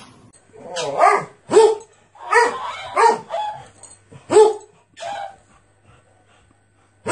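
A dog barking: about six short barks, spaced half a second to a second apart, over the first five seconds.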